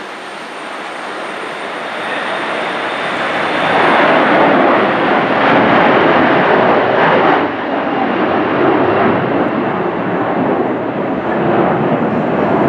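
Airbus A321-211 jet engines at takeoff power, a broad roar that grows louder over the first four seconds and then stays loud.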